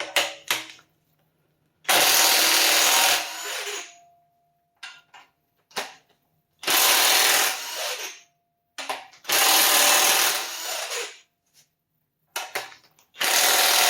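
Handheld power tool run in four short bursts of about a second each, spinning out fasteners during teardown of a Honda K24A2 engine, with light clicks of metal parts between the bursts.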